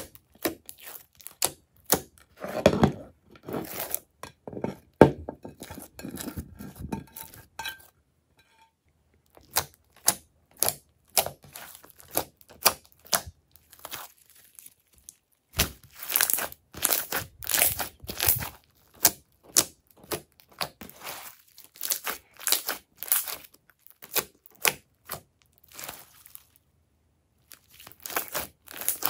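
Thick crunchy slime being kneaded, stretched and squished by hand, giving a run of sticky crackles and pops that stops briefly twice.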